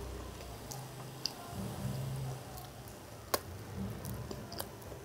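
A person chewing a big mouthful of aloo tikki burger, with low mouth hums and a few sharp clicks.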